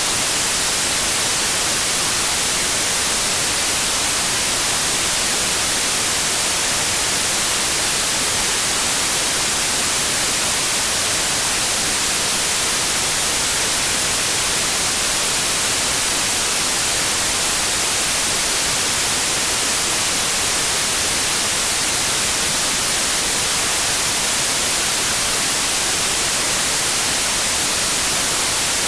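Steady electronic white noise: an even, unchanging hiss that is brightest in the treble.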